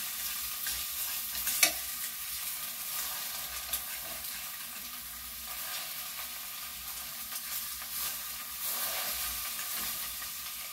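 Egg and mushrooms sizzling in a frying pan while a utensil stirs and scrapes through them, with small ticks and one sharp tap about a second and a half in.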